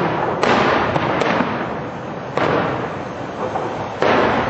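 Aerial firework shells bursting overhead: about five sharp bangs in four and a half seconds, each fading away slowly.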